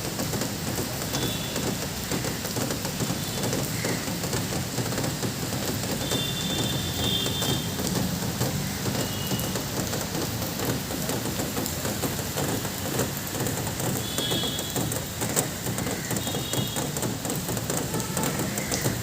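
Steady rain, with a bird giving short, high calls every few seconds over it.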